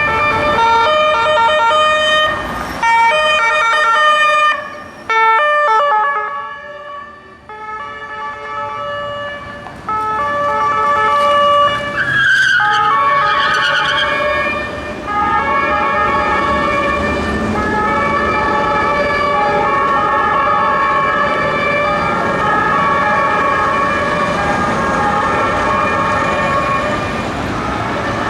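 Two Austrian police cars running their two-tone sirens, each switching back and forth between two pitches, with the two sirens overlapping in the second half. About twelve seconds in comes a short wavering squeal of tyres as a car pulls away hard. Engine and road noise run underneath.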